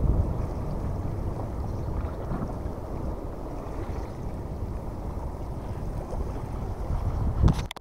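Wind buffeting the microphone, a steady low rumble that swells louder just before it cuts off abruptly near the end.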